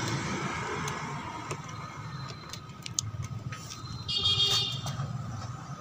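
Steady rumble of road traffic, with a few faint metallic clicks from a screwdriver working the terminal screws of a motorcycle battery. A brief high-pitched tone sounds about four seconds in.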